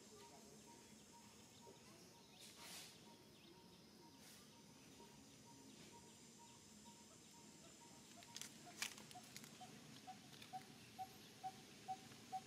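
Near silence: faint outdoor ambience with a soft pip repeated evenly about twice a second, a brief rustle early on, and a few sharp ticks about two-thirds of the way through.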